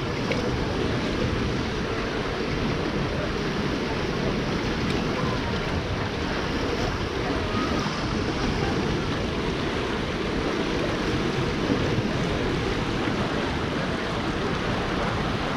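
Rushing, churning water of a water-park rapids channel flowing around an inflatable inner tube, a steady wash of water noise.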